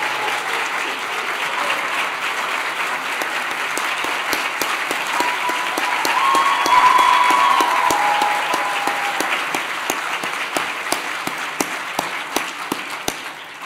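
Auditorium audience applauding, thinning out into scattered separate claps over the last few seconds. A single voice calls out briefly above the clapping about six seconds in.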